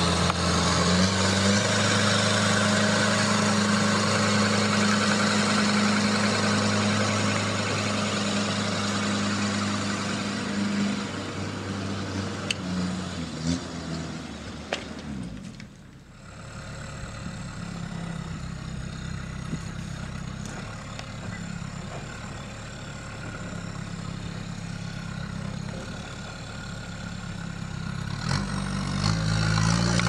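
Sherp ATV's Kubota four-cylinder diesel engine running steadily while the vehicle tows a tree trunk on a rope. It is loudest at first, drops out briefly about halfway, and rises again near the end.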